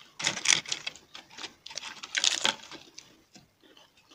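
Crisp crunching of papad (thin fried lentil wafer) being bitten and chewed close to the microphone, in two loud bursts, the second about two seconds in, then a few faint crackles.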